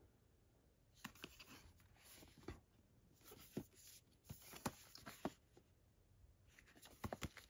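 Faint, scattered light taps and rustles of a Blu-ray box set being handled.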